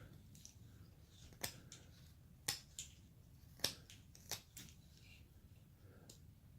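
A hand carving blade slicing small chips from basswood: about six short, sharp cuts at uneven intervals, each a quick snick.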